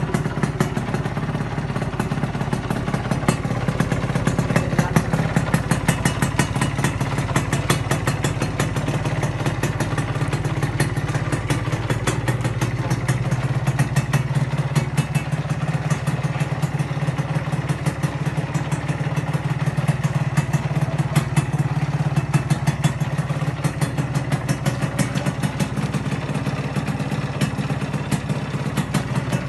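Yamaha 125Z's single-cylinder two-stroke engine running steadily at idle, a fast even stream of firing pulses.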